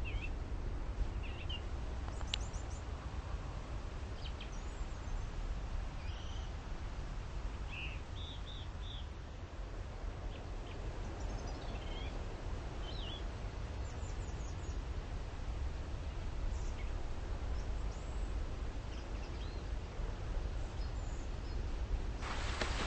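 Scattered short bird chirps over a steady low rumble of outdoor noise.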